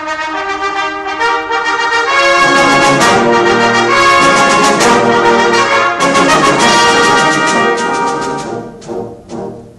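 Concert band playing, with brass to the fore: held chords that grow fuller and louder about two seconds in, then thin out near the end with a couple of short accented notes.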